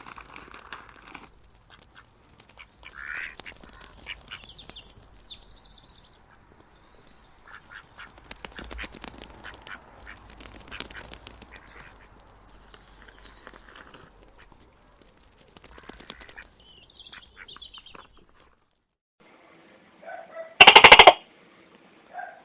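Faint, scattered bird-like animal calls, then one short, very loud, buzzy call near the end.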